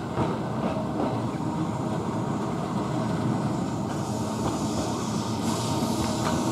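Blackpool open-top boat tram running along the track, its wheels rumbling on the rails with a few brief clicks, growing slightly louder as it comes closer.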